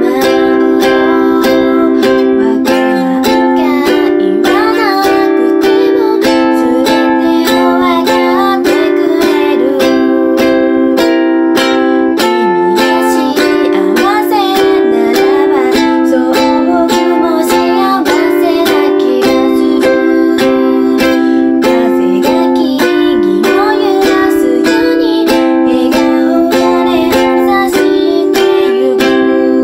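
Ukulele strummed in steady chords, changing about every two seconds, while a woman sings the melody of a pop song's chorus over it.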